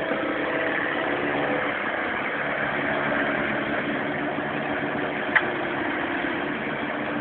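Mini digger engine running steadily at idle, with one sharp click about five seconds in.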